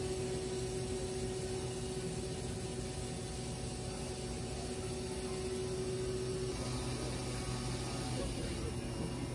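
Haas CNC mill machining an aluminium block under flood coolant: a steady machine hum with the hiss of coolant spray, and one steady tone in it that drops out about two-thirds of the way through.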